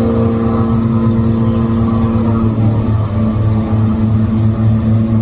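Heavy machine's engine running steadily under load, its note dipping and shifting a little about halfway through.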